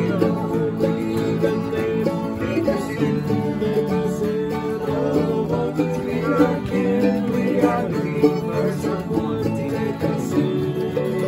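Several acoustic guitars strumming and flatpicking a bluegrass tune together.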